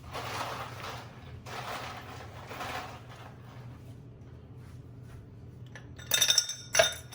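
Ice being gathered, with two stretches of rustling noise, then ice cubes clattering into a glass about six seconds in with a ringing clink, and a shorter clatter just after.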